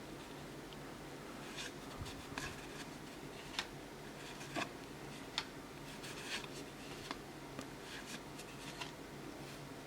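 Cardboard trading cards being handled and flipped one by one, giving short, irregular clicks and slides about once a second over a steady low room hum.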